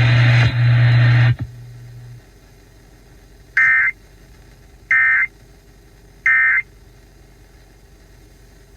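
Emergency Alert System end-of-message signal over a car radio: three short, identical digital data bursts about 1.3 seconds apart. Before them, a loud hiss with a low hum cuts off about a second and a half in.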